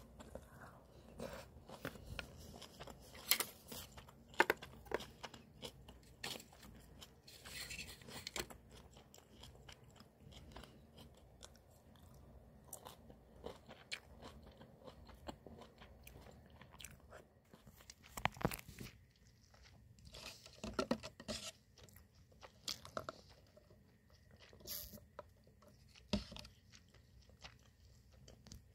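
A person eating close to the microphone: soft chewing with scattered sharp clicks and knocks of utensils and food containers, a few of them louder.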